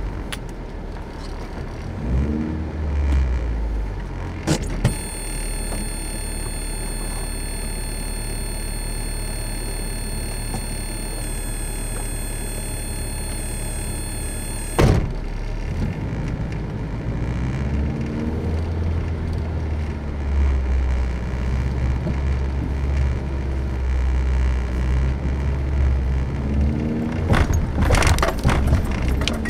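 Dodge Raider's engine heard from inside the cab, running at low speed and revving up and down several times. A steady high-pitched whine comes in with a click about five seconds in and stops with a sharp knock about ten seconds later. A burst of knocks and rattles from the body comes near the end.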